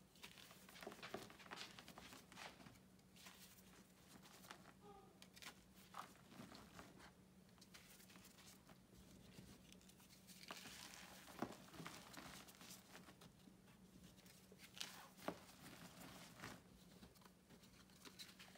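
Gym chalk chunks being crushed and crumbled by hand in a bucket of chalk powder: soft, gritty crunching and crumbling, with a couple of sharper cracks partway through. A faint steady low hum runs underneath.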